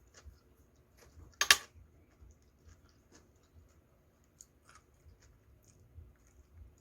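A person eating: faint small clicks and chewing noises, with one short, loud hissing burst about a second and a half in.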